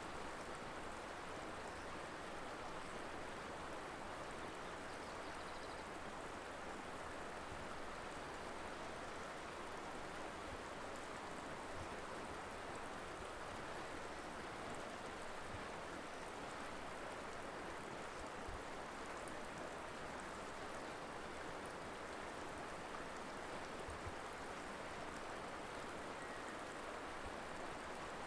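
Mountain river flowing over rocks: a steady, even rush of water.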